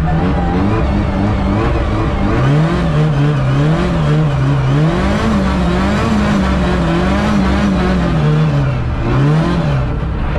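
LADA race car's engine heard from inside the cabin, its revs rising and falling again and again, about once a second through the middle, as the car is drifted on ice.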